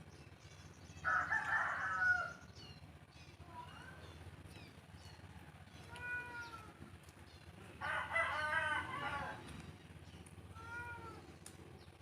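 A rooster crowing twice, about a second in and again about eight seconds in, with shorter, fainter calls in between.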